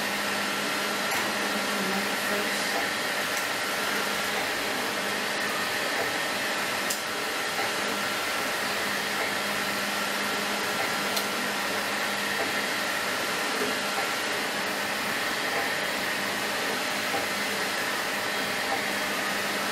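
Steady whoosh of a running fan, with a faint low hum and a thin steady tone that stops about two-thirds of the way through. A few faint clicks are heard along the way.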